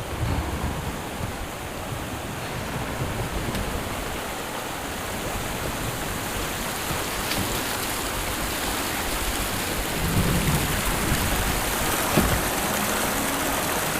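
Steady rush of flowing river water, with low rumbling surges near the start and again about ten and twelve seconds in.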